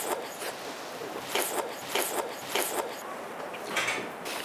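A person chewing food close to the microphone: soft, wet chewing and lip-smacking clicks, several in quick succession in the middle and one more near the end.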